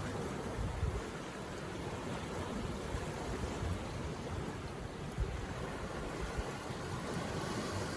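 Ocean surf washing onto a beach: a steady rushing noise without pause.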